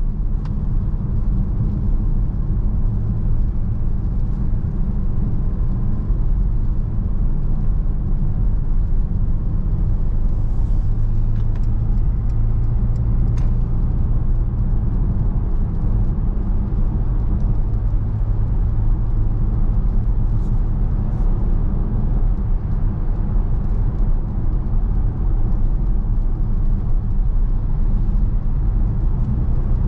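Mercedes-Benz V 300 d van driving at a steady pace: the constant low drone of its four-cylinder diesel engine mixed with road and tyre rumble. There are a few faint clicks around the middle.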